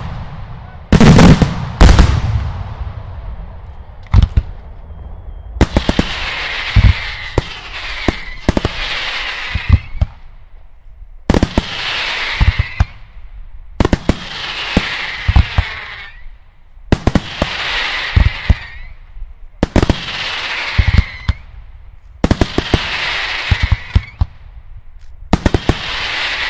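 Daylight fireworks: two heavy bangs of aerial shells in the first two seconds, then about every three seconds a sharp bang followed by a couple of seconds of dense crackling.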